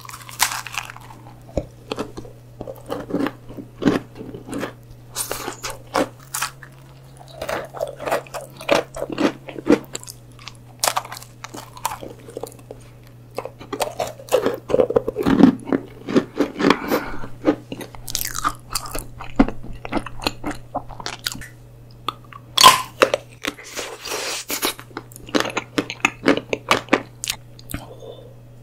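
Close-miked eating sounds: a person biting into chocolate sweets, starting with a chocolate macaron, and chewing. Many crisp, irregular crunches and chewing sounds go on throughout.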